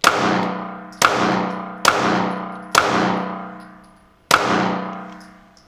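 Five 9mm shots from a Mossberg MC2sc micro-compact pistol, fired about a second apart, with a slightly longer pause before the last one. Each shot rings out in a long echoing decay.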